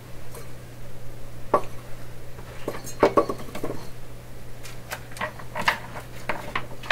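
Small hand tools and parts being shifted about on a wooden workbench: a scatter of light clicks, clinks and knocks, busiest about three seconds in and again in the second half.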